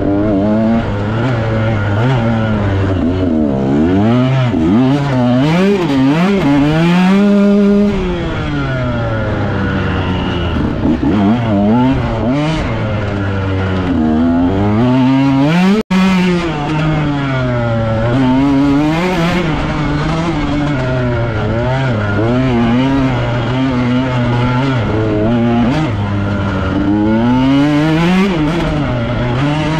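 Dirt bike engine heard up close from the rider's position, revving up and down constantly as it is ridden hard over rough cross-country terrain. The sound cuts out for an instant about halfway through.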